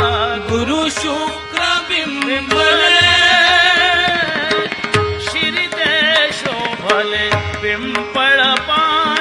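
Devotional Indian music: a wavering melodic line over a steady held drone, with tabla-style hand-drum strokes.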